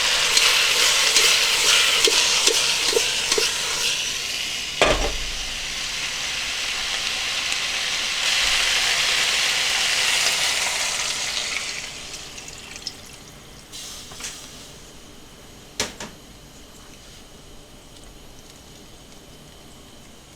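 Food sizzling and frying in a pan, with a sharp clink of a utensil about five seconds in. The sizzle swells again, then dies down about twelve seconds in, and two more light clinks follow.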